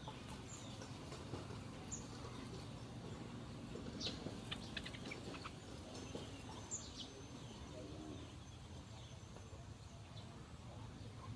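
Small birds chirping: scattered short, high chirps, with a quick run of them about four to five seconds in, over a low steady background rumble.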